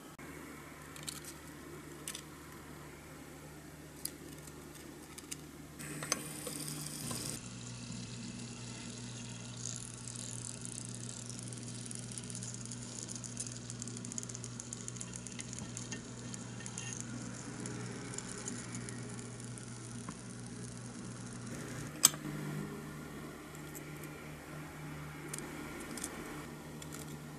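Hot oil sizzling and crackling in a miniature deep fryer as a tiny piece of breaded chicken fries, over a low steady hum. Before and after the frying, small clicks of tongs and utensils.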